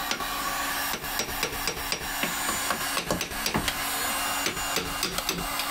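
Electric heat gun blowing steadily on a rusted, seized track rod end to expand the steel so it can be knocked free, with a scatter of light clicks and taps over it.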